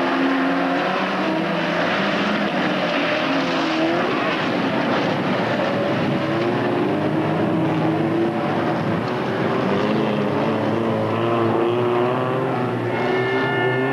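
Folkrace cars' engines revving hard on a dirt track, several engines rising and falling in pitch over a steady rush of noise. A few high steady tones join in near the end.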